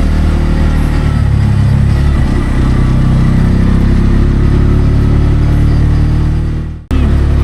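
Auto-rickshaw (tuk-tuk) engine running steadily under load on a steep uphill climb, its pitch shifting slightly about a second in. The sound breaks off for an instant near the end, then resumes.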